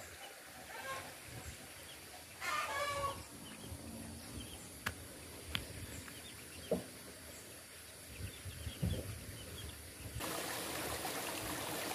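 Chickens clucking faintly in the background, with one louder call about two and a half seconds in and a few light clicks. A steady hiss comes in near the end.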